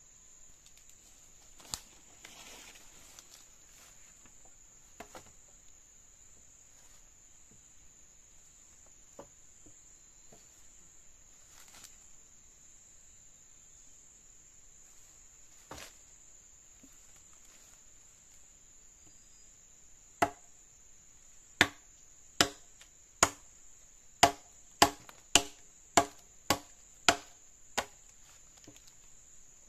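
Steady high drone of crickets or other insects, with a few faint knocks early on. About two-thirds of the way in, a run of about eleven sharp chopping strikes begins, at first about a second apart and then a little faster.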